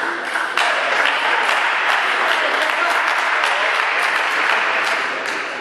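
Spectators applauding, swelling about half a second in and holding steady, with a few sharp clicks over it.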